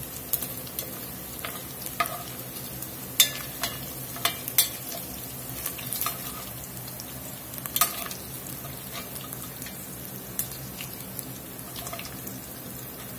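Chopped cube steak sizzling as it browns in hot oil in an enamelled Dutch oven, with a metal spoon stirring and scraping the pot in scattered sharp clinks and knocks.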